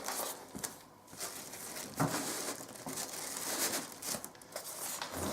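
Packing materials rustling and crinkling as a boxed electric fireplace is pulled out of its carton, with a few short knocks.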